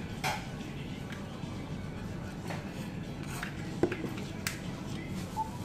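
Restaurant ambience: a steady low hum with a few scattered light clicks of chopsticks and tableware, the sharpest a little before the four-second mark, under faint background music.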